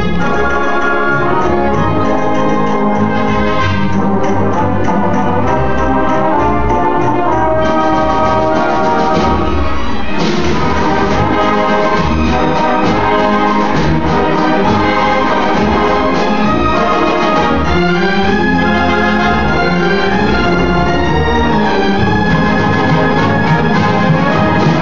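High school orchestra playing live, with the violins, cellos and basses of the string section sustaining and moving through notes.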